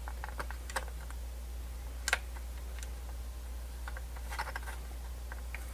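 Scattered small clicks and taps of plastic radio parts being handled as a volume potentiometer is fitted into the radio's case, the sharpest click about two seconds in, over a steady low hum.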